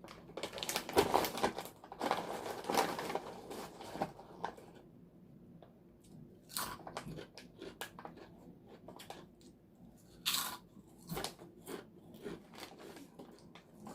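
Close-miked biting and chewing of crisp snack chips: dense crunching for about the first four seconds, a short pause, then slower, separate crunches as the chewing goes on.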